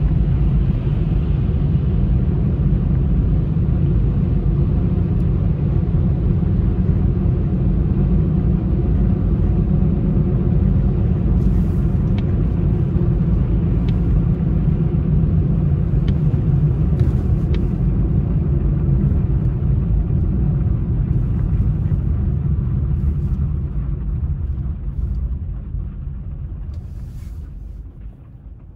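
Car driving, heard as a steady low rumble of engine and tyre noise, with a few faint clicks midway. The rumble dies away over the last few seconds as the car slows.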